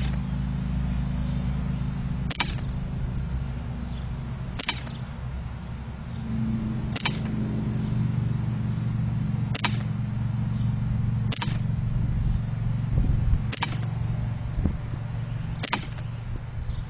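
Taurus PT 24/7 CO2 airsoft pistol firing single shots, eight sharp cracks spaced about two seconds apart, over a steady low hum.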